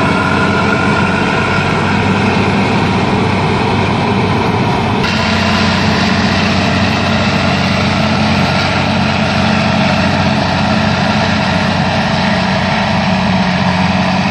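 John Deere 7800 self-propelled forage harvester chopping maize under load, its engine and cutterhead running steadily as it blows the crop into a trailer driven alongside. The higher part of the noise changes abruptly about five seconds in.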